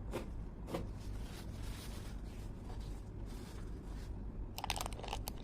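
Light handling noises: tissue paper rustling, with a few soft clicks and a quick run of small clicks and rustles near the end.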